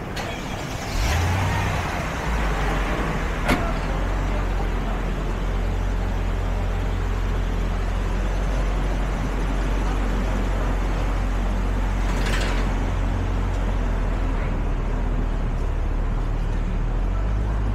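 A motor vehicle's engine running steadily close by, a low rumble that swells in about a second in. There is a sharp click a few seconds in and a short hiss later on.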